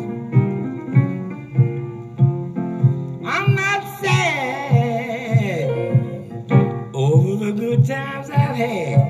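Solo blues piano with a steady left-hand beat, joined about three seconds in by a man's wordless vocal that slides down in pitch, with another sliding phrase near the end.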